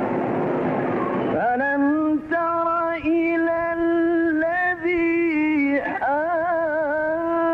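Male Quran reciter chanting in the melodic tajweed style from an old live recording. He holds long ornamented notes with a wavering vibrato, broken by a few short breaths. The voice comes in about a second and a half in, after a noisy audience murmur.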